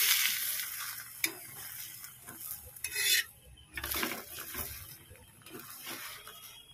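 Oil sizzling under a roti frying on a flat tawa, loudest at the start with another surge about three seconds in, then dying down, while a metal spatula presses and scrapes the roti against the griddle with a few sharp clicks.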